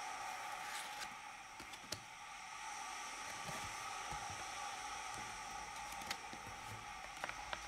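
Steady background hiss, with a few faint clicks and light rustles from Pokémon trading cards being slid and handled. The clicks come about one and two seconds in, again around six seconds in, and as a quick cluster near the end.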